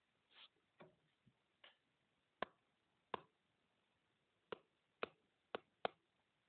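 Faint, irregular taps of a stylus on a tablet screen during handwriting, about nine short ticks a half-second to a second apart.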